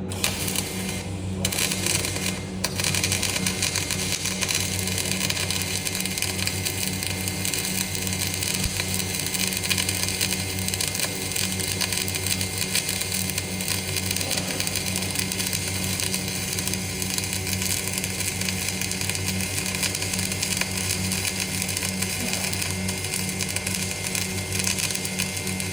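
Electric arc welding: the arc struck near the start, stopping briefly, then burning steadily with a continuous crackling hiss over the low buzz of the welding machine.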